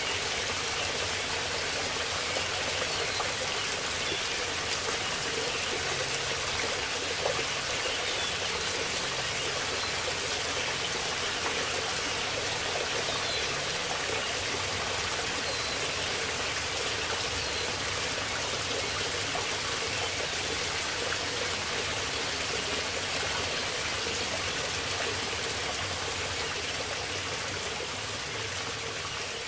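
Steady rushing of a creek and waterfall spilling down a rocky gorge, with a few faint high chirps.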